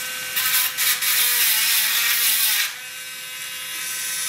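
Electric engraving tool buzzing, its tip scratching into the metal of a VW 002 transaxle's shift fork for about two seconds near the start to mark the fork's position, then buzzing on lighter against the part.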